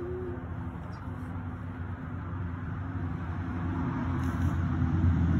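Low rumble of a motor vehicle's engine that grows louder toward the end.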